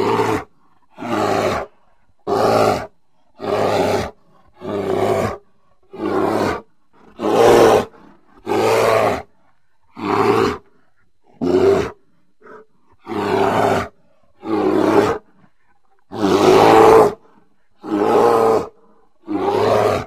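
Giant ground sloth (Megatherium) sound effect: a string of short, loud creature roars, each under a second long, one about every second and a half with short silences between.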